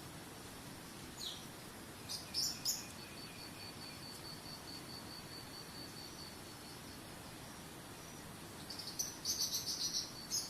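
Songbirds chirping over the steady rush of a waterfall: a short falling note about a second in, a brief cluster of chirps at about two and a half seconds, and a quick run of chirps near the end. A high, evenly pulsing insect-like trill comes and goes.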